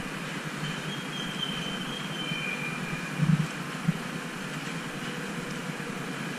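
Steady background noise of an elevated metro station platform, with a faint high-pitched squeal in the first couple of seconds and a soft thump about three seconds in.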